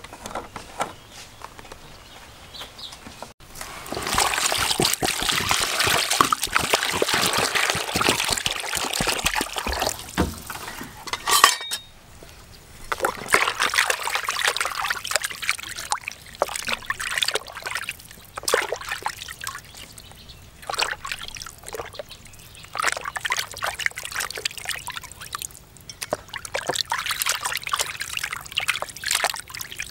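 Water sloshing and splashing in a plastic basin as hands rub and turn a whole black-skinned chicken to wash it, in uneven bursts that start about four seconds in.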